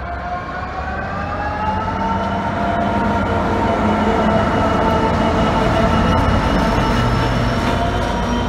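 EWS Class 66 diesel locomotive passing close by under power, its two-stroke V12 engine running with a whine whose pitch climbs over the first couple of seconds. It grows louder as the locomotive draws level and passes.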